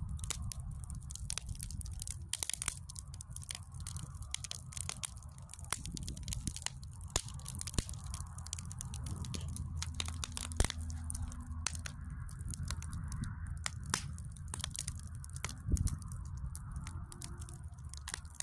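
Burning firewood crackling, with frequent sharp, irregular pops and snaps over a steady low rumble.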